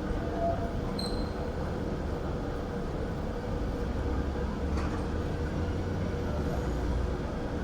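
Manchester Metrolink tram (Bombardier M5000) running at low speed among city street noise, with a steady low rumble and a faint hum. A short high blip about a second in and a faint click near five seconds.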